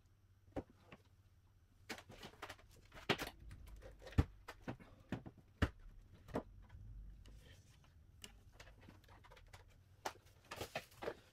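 Irregular small clicks and taps of hand tools and phone parts being handled during a phone screen replacement. A few sharper clicks stand out in the middle, and a quick cluster comes near the end.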